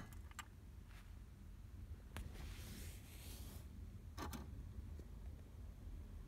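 Faint clicks repeating every second or so from the tape mechanism of a 1999 Ford Escort ZX2's factory cassette deck, switched on with the ignition key. This is a fault: the mechanism keeps cycling and the noise won't stop. A soft hiss runs for about a second in the middle.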